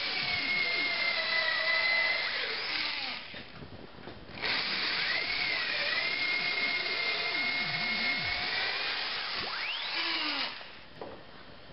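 Corded electric drill boring pilot holes for lag screws up into a wooden ceiling joist: a steady motor whine in two long runs, with a brief pause about four seconds in, stopping about ten and a half seconds in.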